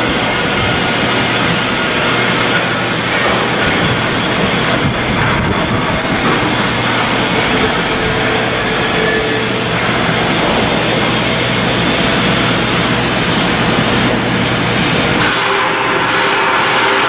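Loud, steady industrial noise of shipbuilding work, machinery running without a break, changing character about three-quarters of the way through.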